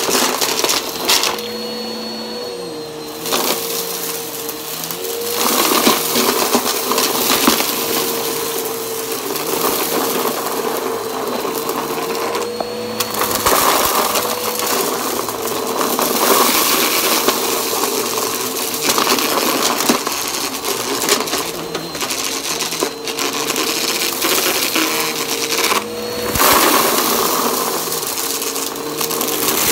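Bissell upright vacuum running steadily while its brushroll sucks up a pile of carpet lint full of beads and small plastic bits, the debris rattling and crackling up through the machine. The motor's steady whine dips slightly now and then as the foot pushes into the pile.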